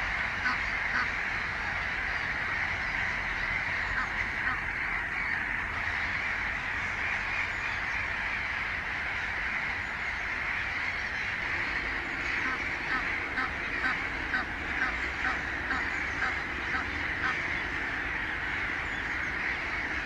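Egyptian goose goslings peeping: a steady chorus of high calls, with short louder peeps following one another quickly through the second half.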